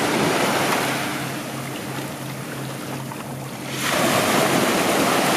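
Small waves washing up the sand at the water's edge. The wash eases off in the middle and swells again about four seconds in, over a steady low hum.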